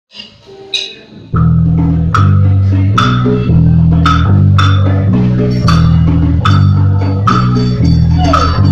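Instrumental music intro. A few quiet plucked notes, then about a second in a band comes in loud with bass guitar, guitar and a drum kit keeping a steady beat.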